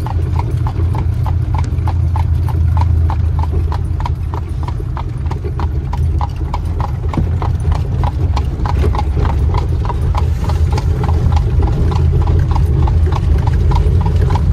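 A horse's hooves clip-clopping on asphalt at a trot in a quick, even rhythm while it pulls a buggy, over the steady low rumble of the buggy rolling along the road.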